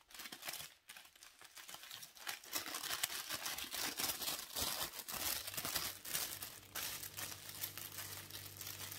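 Crinkled gold wrapping paper crinkling and rustling as it is unwrapped and unfolded by hand, in dense irregular crackles that are busiest in the middle.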